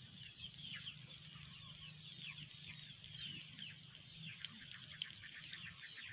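Faint chirping of many birds, a dense run of quick, falling high notes, over a low steady hum, with a few sharp clicks about three, four and a half, and five seconds in.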